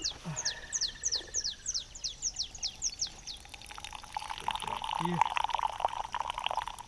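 A bird calling a rapid series of short falling notes, about four a second, for the first three seconds. Then coffee is poured from a thermos into a glass cup, a louder pouring that runs from about four seconds in to the end.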